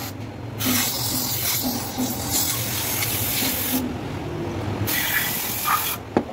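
Aerosol cleaner spray can hissing onto a removed EGR valve assembly to clear a suspected blockage behind a P0401 code. It comes in two bursts: a long one of about three seconds, then after a pause a shorter one of about a second. A sharp click follows near the end.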